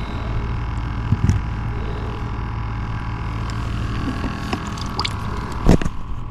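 Steady low motor hum with a fixed tone, broken by a few short knocks and clicks, the loudest near the end.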